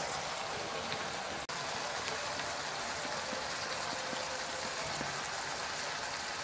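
Ivy gourd fry sizzling in a cast-iron kadai over a gas flame as its gravy cooks down dry: a steady hiss with faint scattered crackles.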